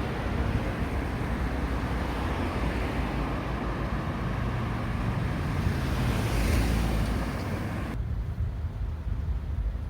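Road traffic passing, with wind rumbling on the microphone; one vehicle swells past about six seconds in, and the hiss drops away abruptly about eight seconds in.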